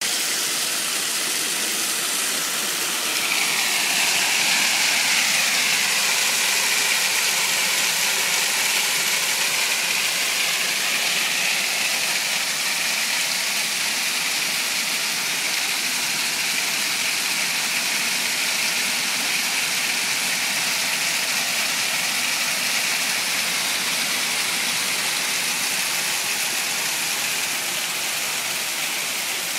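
Hailstorm: hail pelting tiled roofs and the street in a dense, steady hiss, growing a little louder a few seconds in.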